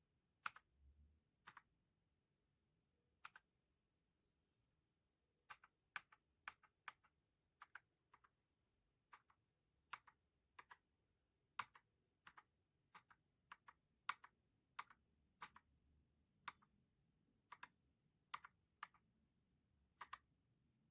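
Keystrokes on a Redragon K596 Vishnu mechanical keyboard with Akko CS Lavender Purple tactile switches and HyperX PBT pudding keycaps. The keys are pressed one at a time, irregularly, about one or two a second, and some strokes come as a quick double click.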